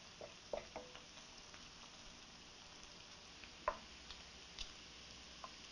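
A wooden spoon stirring onions and bacon in a stainless skillet: a handful of faint taps and scrapes against the pan, the clearest about two-thirds of the way in, over a faint sizzle of frying.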